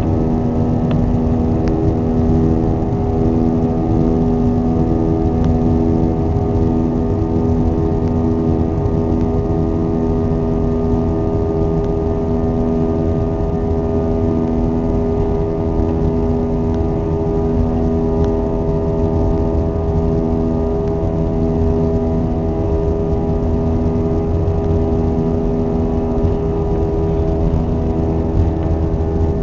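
Airbus A321's two jet engines heard from inside the cabin while the airliner taxis: the engine whine rises in pitch right at the start, then holds as a steady set of tones, the lower ones pulsing, over a constant low rumble.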